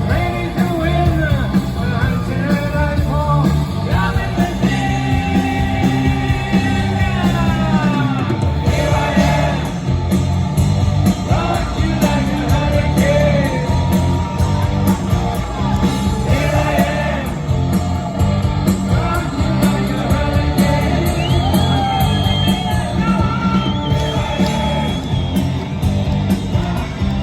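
Hard rock band playing live, loud, with a singer's voice over heavy bass and drums, heard from the audience.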